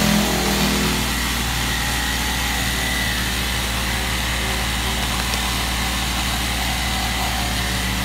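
Steady low mechanical hum of an engine running at an even idle.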